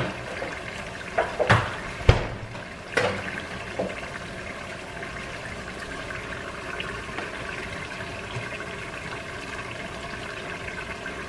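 A few short knocks and clunks from the refrigerator door and the plastic milk jug being handled, then milk being poured from the jug into a glass measuring cup over a steady background hiss.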